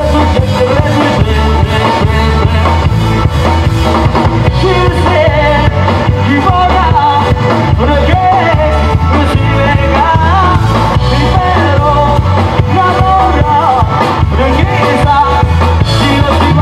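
Isan khaen band music: a singer or lead melody wavering over a steady, heavy bass beat, loud and continuous.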